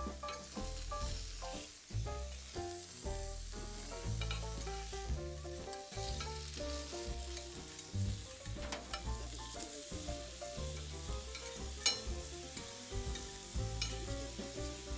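Food sizzling and frying on a hot iron griddle plate, with a few sharp clicks from stirring, under background music with a walking bass line.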